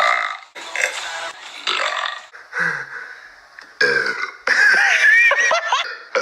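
A man burping repeatedly: a string of short burps, then a longer burp with a wavering pitch about four and a half seconds in.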